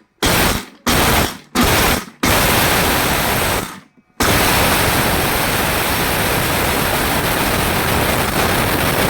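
Mixer grinder motor grinding whole dried turmeric: three short pulses, then a longer run, a brief stop just before four seconds in, then running steadily.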